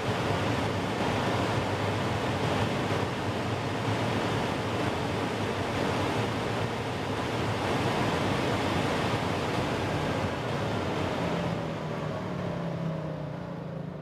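Rimac Nevera electric hypercar at full throttle near 400 km/h, heard inside the cabin: a steady, loud roar of wind and tyres. Near the end the car brakes hard, the roar falls away and a falling whine comes through as it slows.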